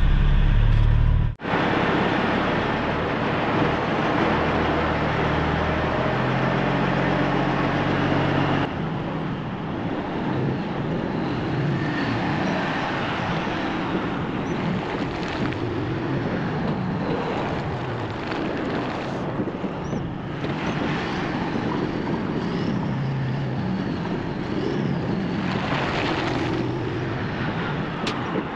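Semi truck's diesel engine idling: a steady, even noise with no distinct knocks, which breaks off abruptly about a second in and changes character at around nine seconds.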